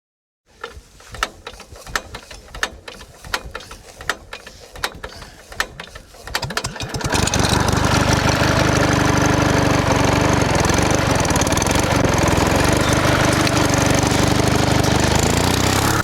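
A small engine: irregular clicks and knocks that quicken until it catches about seven seconds in, then runs steadily.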